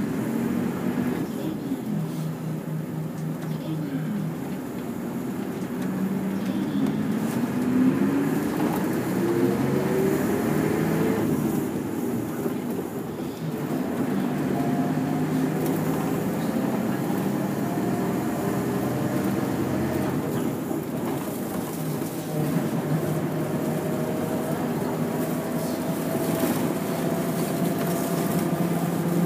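Route bus engine running under way, heard from inside the passenger cabin. Its pitch climbs as it accelerates about six to eleven seconds in, then it settles into a steadier run with a faint whine.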